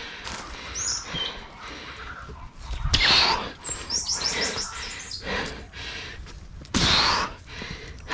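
Small birds chirping, with a quick run of high chirps about four seconds in. Two loud breathy rushes of noise come about three and seven seconds in.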